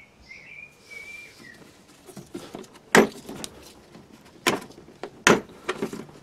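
Plastic latches of a blow-moulded tool case being handled and snapped open: three sharp plastic clicks, the last two less than a second apart, with small handling rattles between. A bird chirps faintly near the start.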